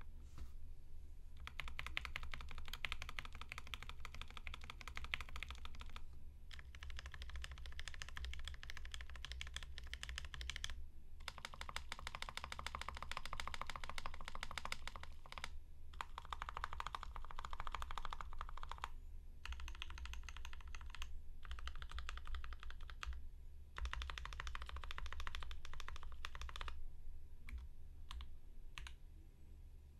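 Typing on a Switch Couture acrylic Alice mechanical keyboard with Alpaca linear switches lubed with Krytox 205g0 and filmed, on an acrylic plate with no dampening, under GMK keycaps. Rapid keystrokes come in runs of several seconds with short pauses between them and thin out to a few single keystrokes near the end.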